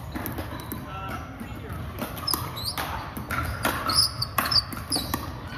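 Pickleball rally on a hardwood gym court: a series of sharp pops of paddles striking the plastic ball, and the ball bouncing, the loudest hits about four seconds in. Short high sneaker squeaks on the wooden floor come between the hits.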